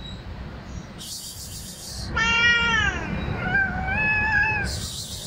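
Stray cat hissing, then giving a yowl that falls in pitch and a longer, drawn-out yowl held at one pitch, then hissing again near the end: a defensive warning at the camera held close to it.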